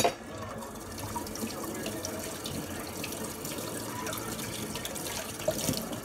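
Kitchen tap running steadily into a sink as raw pork chops are rinsed under it, starting with a sharp knock.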